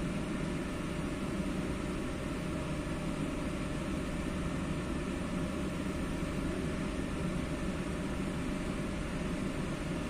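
Steady low running noise inside a moving Dubai Metro train cabin, an even drone of the train in motion with no change in level.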